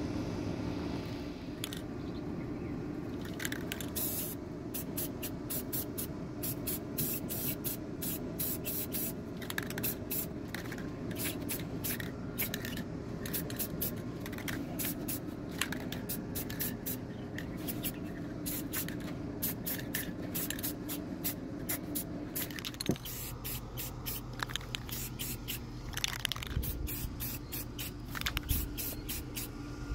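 Aerosol spray can being sprayed in many short hissing bursts, several a second.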